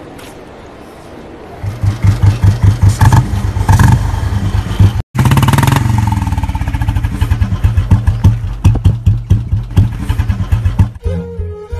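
Motorcycle engine coming in loud about one and a half seconds in and running with a fast, even beat, revved up and easing off with a falling pitch. Music comes in near the end.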